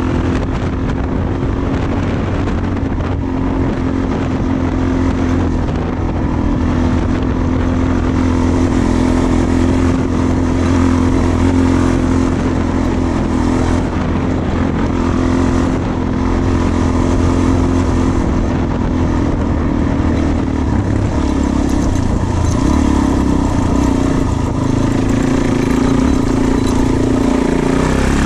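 Trail motorcycle engine running at steady low revs while riding over a rough, stony track, the revs shifting a little near the end.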